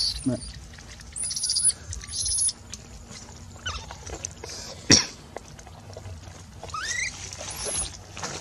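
Newborn macaque giving short, very high, thin squeaks, several in the first two and a half seconds and again near the end, with one rising call shortly before. A single sharp click about five seconds in is the loudest sound.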